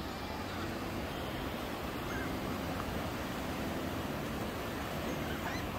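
Steady rush of ocean surf breaking along the shore.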